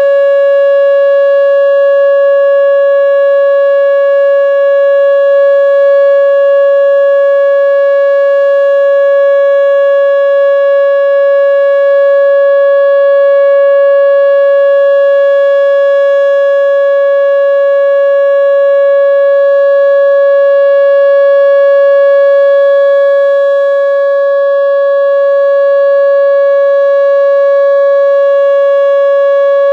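Whelen WPS-2910 electronic outdoor warning siren sounding a steady alert tone: one unchanging pitch with strong overtones, very loud at close range. It is the steady Alert signal of the Columbia Generating Station alerting system test.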